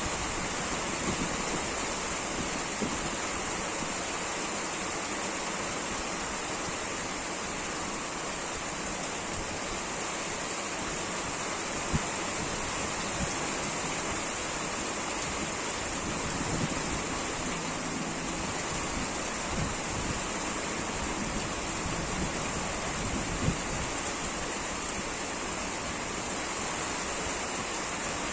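Heavy wind-driven rain: a steady, even hiss of falling water, with a few sharper taps of drops standing out, such as once about twelve seconds in and again near the end.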